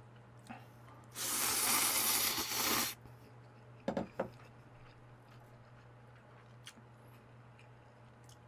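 A person slurping a mouthful of spicy mixed instant noodles: one loud, airy slurp lasting about two seconds. Two short knocks follow about a second later.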